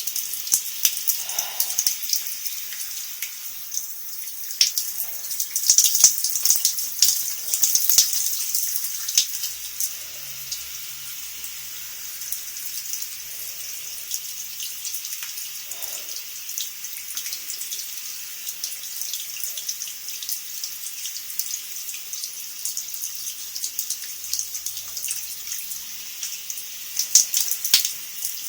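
Shower running: a steady spray of water with a high hiss and many small splashes, louder for a few seconds early on and again near the end.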